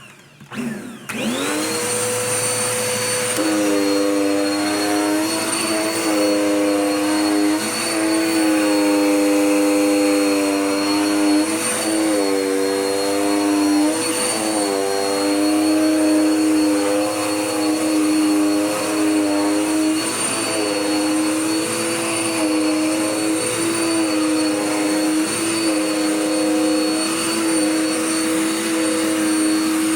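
Dirt Devil Power Max Pet vacuum cleaner switched on, its motor spinning up to a high whine within about a second and then running steadily. A lower droning tone sets in a few seconds later and wavers every second or two.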